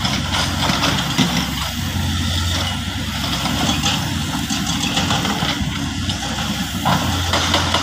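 Heavy diesel engine of earthmoving machinery running steadily at a low, even speed, with some light clatter over it.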